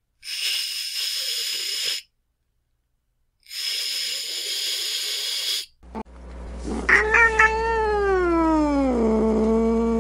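Domestic cat hissing twice, each hiss about two seconds long. Then comes a long yowl that slides down in pitch and settles into a low, steady moan.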